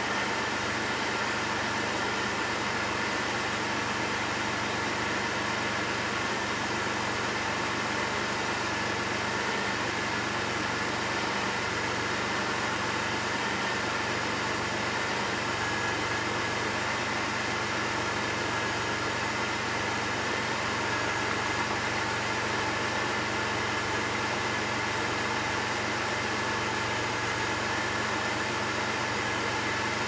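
2002 Pontiac Grand Prix GT's 3.8 L 3800 Series II V6 idling at just under 1,000 rpm, heard from inside the cabin: a steady engine hum with a higher whine over it. The idle is rough and bogs down about once a second with no check-engine light, a fault the owner has not yet traced.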